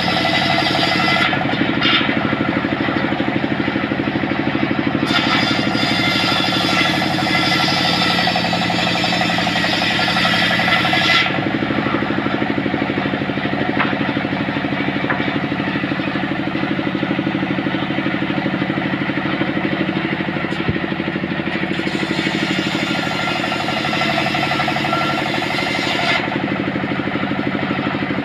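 Large engine-driven circular saw ripping a thick trembesi (rain tree) plank lengthwise, with the drive engine running steadily underneath. The sharper cutting noise comes and goes as the wood is pushed through the blade, and is heaviest from about five to eleven seconds in.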